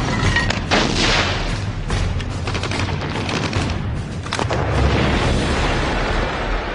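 Battle sound effects: repeated gunshots and bursts of gunfire with booms over a dense low rumble.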